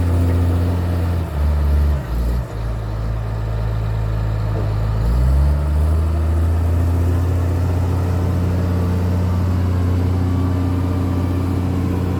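Diesel engine of a Komatsu wheel loader working, its engine note dropping about a second in and climbing back about five seconds in, then holding steady.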